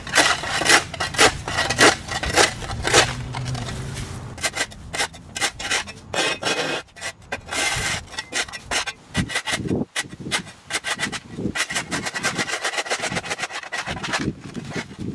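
An edger's blade scraping and rasping through overgrown turf and dirt along a hard edge, a rapid, gritty run of strokes.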